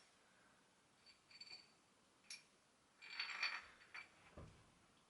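Faint metal clinks and clicks of the washers, nuts and threaded bar of a homemade headset press being handled and fitted over a bike headset cup, with a brief ringing cluster about three seconds in and a dull knock near the end.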